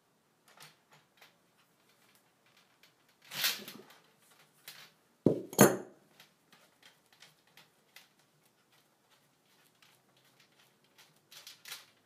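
Metal clinking and knocking as a brass flare fitting, flare nut and wrench are handled and the nut is loosened, with scattered small clicks and two sharp knocks a fraction of a second apart about five and a half seconds in, the loudest sounds.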